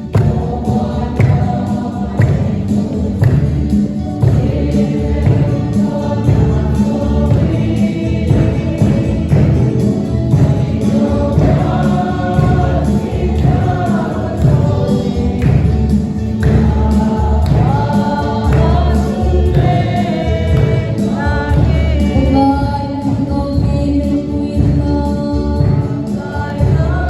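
Gospel choir singing a Christian song over band accompaniment with a heavy, steady bass beat.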